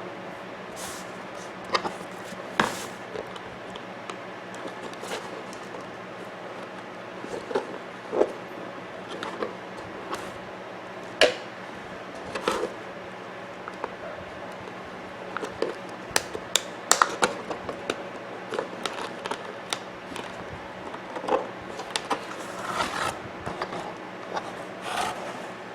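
Scattered clicks, taps and short scrapes of a wall clock's quartz movement being worked loose from the case by hand; the old movement is held down with tape.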